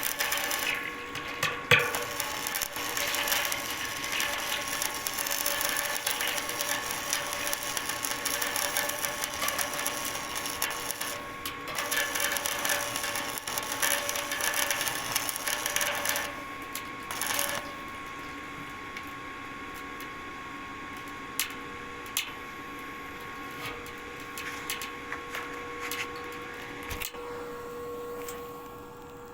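Construction work noise: a machine running steadily with clatter and knocks, dropping to a quieter run with a few separate sharp knocks in the second half.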